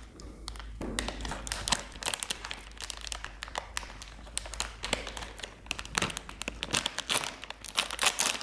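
Plastic ice cream bar wrapper crinkling as it is handled and pulled open by hand: a dense, irregular run of sharp crackles.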